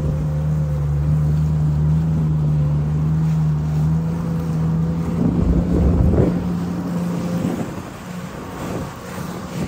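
Jet ski engine running at a steady cruising speed, a constant hum, with water splashing against the hull about halfway through. The engine note weakens near the end.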